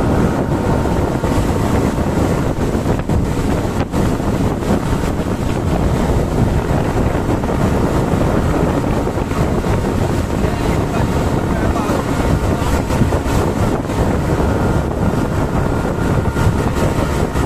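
Speedboat running at speed across open water: a steady engine drone mixed with the rush of hull and spray, and wind buffeting the microphone.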